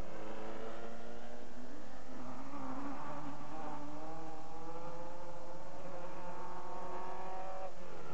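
Off-road racing buggies with Volkswagen engines running hard, their engines revving up and down as they race. Near the end one engine's pitch drops steeply, as when a car passes or the driver lifts off.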